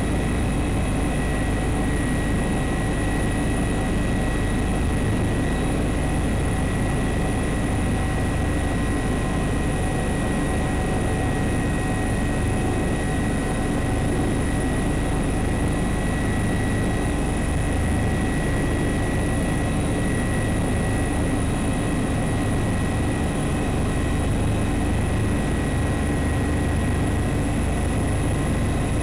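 Steady engine and airframe drone of the aircraft carrying the camera, heard from on board, with thin steady whines above it.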